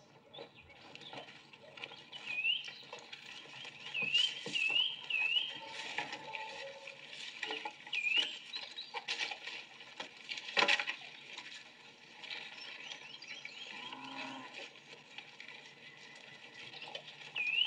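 Film soundtrack of outdoor camp ambience, heard through a TV speaker: a bird calling in short rising chirps, several in quick succession, among scattered knocks, with one sharp knock about ten seconds in being the loudest.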